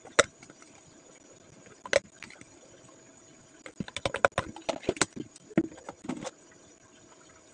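Clinks and knocks from a spoon and plastic containers being handled on a table while drinks are made. There is a single sharp click just after the start and another about two seconds in, then a quick run of clatter about four to six seconds in.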